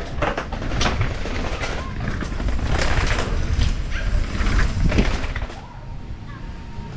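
Downhill mountain bike riding over rough ground: wind buffets the helmet action camera's microphone, and the frame and chain knock and rattle over the bumps. The noise drops about five and a half seconds in.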